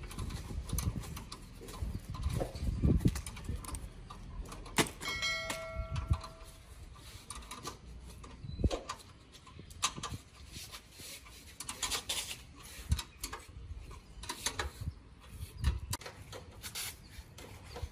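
Scattered clicks, knocks and handling noises of hand work on a split air conditioner's outdoor unit and its pipes, with low thumps and a brief ringing tone about five seconds in.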